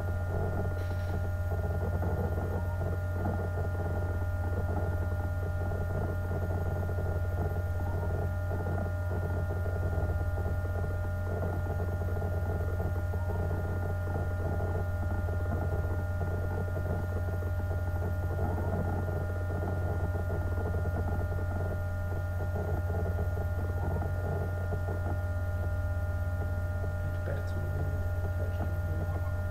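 Steady electrical hum from the running rotating-tank apparatus. A strong low hum sits under several steady higher tones and a rough, fluttering mid-range noise.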